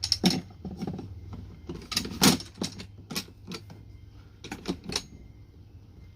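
A push mower's handle bars being lined up and fitted into place: a series of sharp clicks and knocks over about five seconds, the loudest a little past two seconds in, then quiet.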